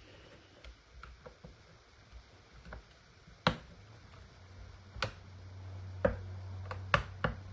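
Scattered light clicks and taps of a screwdriver working against the plastic housing of a Makita impact driver as it is screwed back together, with a few sharper clicks, the last two close together near the end. A low steady hum comes in about halfway.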